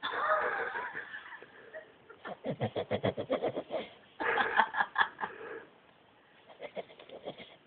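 A person laughing in bursts: a high, held squeal of laughter first, then two runs of rapid giggles, with a fainter giggle near the end.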